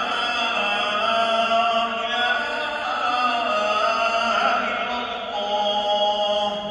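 A man's voice chanting in long, drawn-out melodic phrases with slowly bending held notes: Islamic recitation heard in the mosque's prayer hall.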